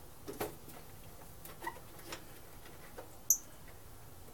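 Faint, scattered small clicks and ticks of a hand tool working the bolts on a Briggs and Stratton lawn mower engine, with one sharp, high click about three seconds in.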